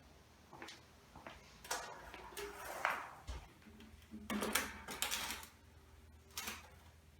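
Handling noise as the steel box fan is turned around: irregular knocks, clicks and scrapes, with the fan itself switched off.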